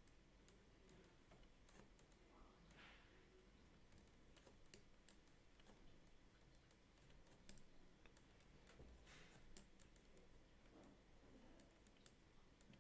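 Near silence with faint, irregular clicking from a computer mouse and keyboard as strokes are drawn.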